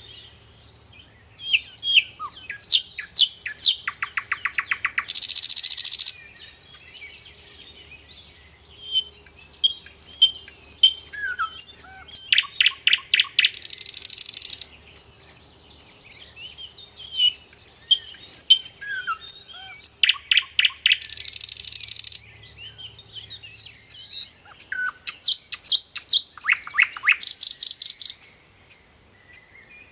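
Small songbirds chirping and twittering in bursts of rapid high trills and harsh buzzy notes, a burst about every eight seconds with short quieter gaps between.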